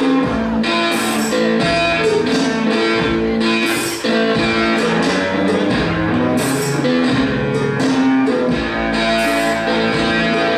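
Music with guitar, steady throughout.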